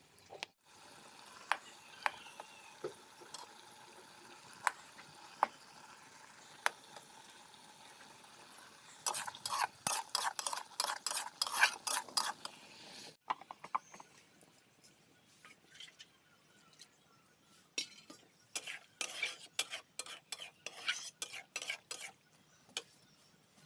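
A metal spoon stirring and scraping food in a cooking pan, with quick runs of scrapes about nine seconds in and again near the end, over a faint sizzle.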